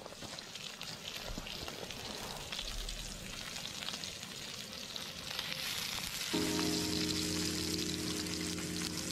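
Brown trout frying in a pan: a steady crackling sizzle with fine pops, growing louder a little over halfway through. Music chords come in over it near the end.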